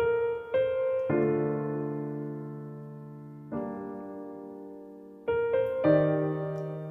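Background music played on piano: slow single notes and chords, each struck and left to ring and fade, with a long held chord in the middle.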